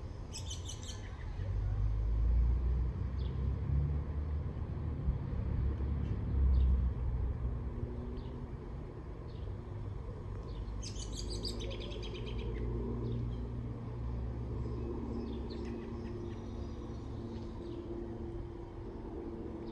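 Low, steady rumble of an aircraft passing high overhead. Small birds chirp in short bursts, once just after the start and again about halfway through.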